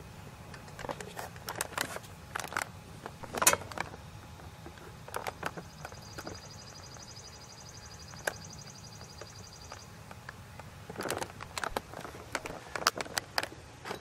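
Quiet outdoor background with scattered sharp clicks and knocks, the loudest a little over three seconds in. A high, fast-pulsing trill runs for about four seconds in the middle.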